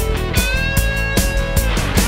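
Background rock music: a guitar playing long held notes over a steady drum beat.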